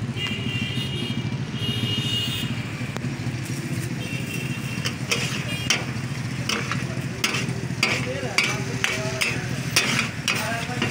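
Metal spatula blades striking a hot iron tawa griddle as katakat meat is chopped: a run of sharp irregular clanks, about one or two a second, from about five seconds in, the clatter that gives taka-tak its name. Underneath is a steady low hum and the sizzle of meat frying.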